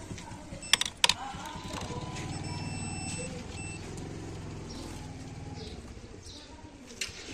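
Fujikura 80S optical-fibre fusion splicer: two sharp clicks about a second in, then its small internal motors buzz for about three seconds with a faint steady high whine over them. Another click comes near the end.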